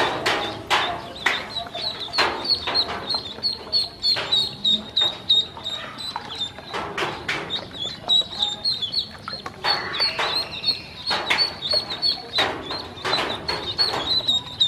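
A group of ducklings peeping without pause in quick, high, short chirps, with frequent sharp splashes and dabbling in the water as they swim and bob.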